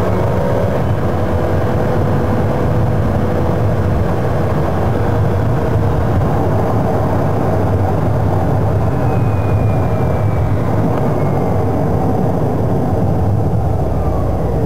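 Steady engine and road rumble heard from inside a moving car, with no sharp events.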